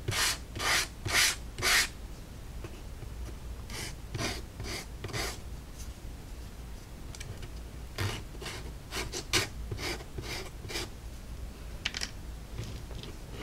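Small laser-cut wood pieces rubbed back and forth across an emery board, a series of short scratchy sanding strokes coming in runs with short pauses between them.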